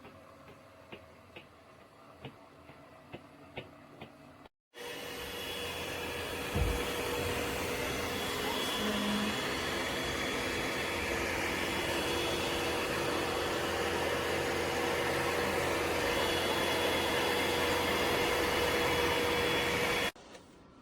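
Faint irregular ticking, then the ECOVACS DEEBOT X9 Pro Omni's vacuum suction switching on and running for about fifteen seconds as a loud, steady rush with a thin whine, before cutting off abruptly. A low thump sounds shortly after it starts.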